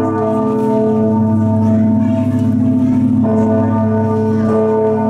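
Full peal of the five bronze bells of St Mark's Campanile, Venice, swung full-circle in the traditional Venetian 'a slancio' style, heard close up inside the belfry. Many overlapping tones ring on and on. New clapper strikes land irregularly, one about three seconds in and another near the end.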